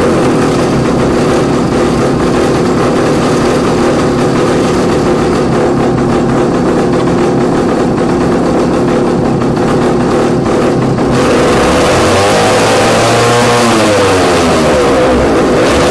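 Two-stroke chainsaw engine, converted to drive a wheel by chain, running steadily at a fairly high speed while the driven wheel is gripped by hand to load it. From about two-thirds in it is revved up and down several times.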